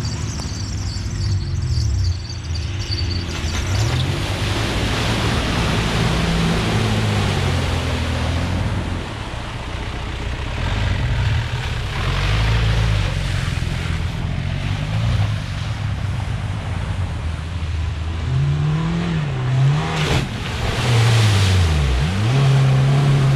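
Off-road 4x4 engines revving hard through deep mud, the pitch rising and falling again and again as the wheels spin and churn mud and water. A single sharp knock near the end.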